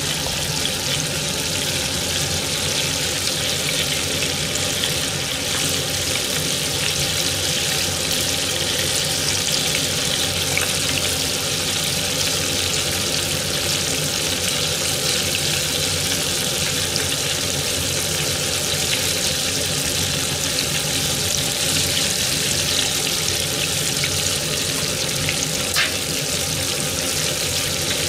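Karaage pieces deep-frying in hot oil in a small pot, a steady, even sizzle.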